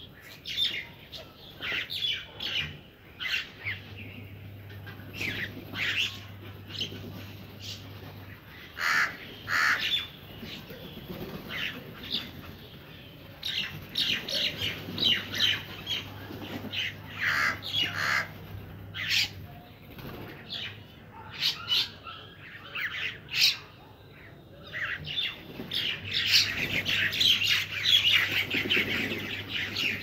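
Crows cawing again and again among the calls of other birds, the calls thickest and loudest near the end.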